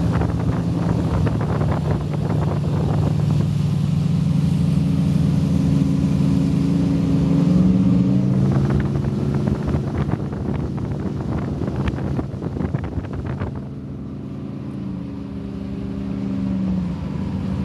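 Twin inboard engines of a Fountain Lightning powerboat running underway, a steady engine hum with water and wind noise and irregular slaps of the hull on the water. About three-quarters of the way through the engines ease off and quiet a little, then pick up again near the end.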